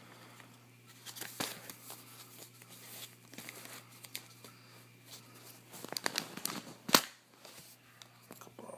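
Mail package being torn open by hand: irregular tearing, crinkling and rustling of the wrapping, with one sharp, loud rip about seven seconds in.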